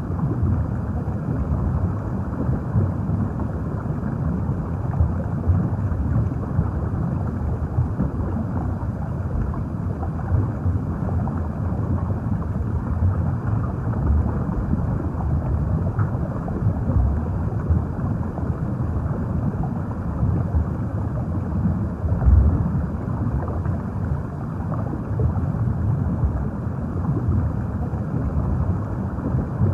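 Underwater ambience: a steady, muffled low rumble of moving water with gentle swells and no distinct events.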